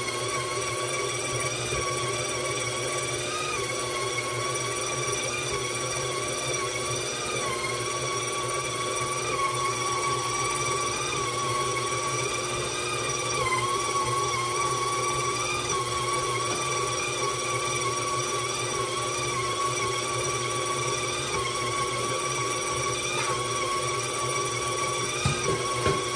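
KitchenAid stand mixer running steadily, its motor giving a high whine as the dough hook kneads bread dough in the steel bowl; the whine wavers slightly in pitch now and then.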